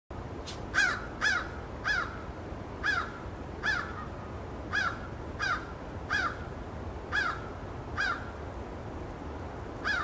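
American crow cawing, a run of about eleven short caws spaced roughly every half second to a second, each rising and then falling in pitch.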